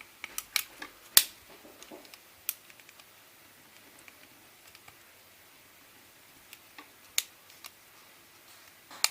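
Sharp, scattered clicks and taps of a first-generation iPod Nano's small parts being handled and fitted together during reassembly. A quick cluster comes in the first second and a half, the loudest about a second in, then a few isolated clicks later on and near the end.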